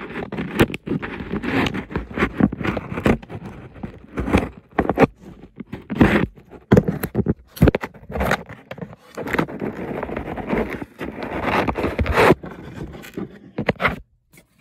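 Cardboard packaging being worked open by hand: irregular scraping, rubbing and crackling strokes.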